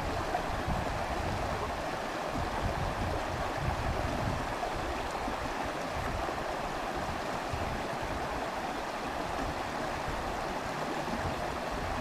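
Shallow creek running fast over rocks: a steady rush of flowing water, with an uneven low rumble underneath.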